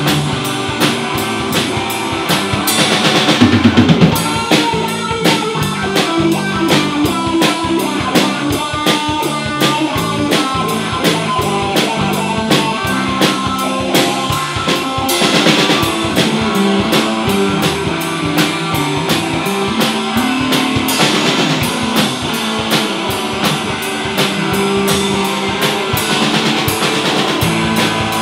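Live blues-rock band playing without vocals: a Les Paul electric guitar, an electric bass and a drum kit. The music swells loudest about three to four seconds in.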